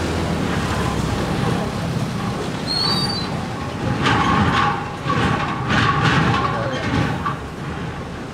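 Truck engine running as the truck drives through floodwater on a street, its tyres hissing and splashing through the water, with several louder surges of spray and rumble in the second half.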